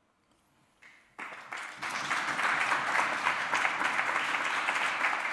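Audience applauding after a brief hush, starting about a second in and continuing steadily.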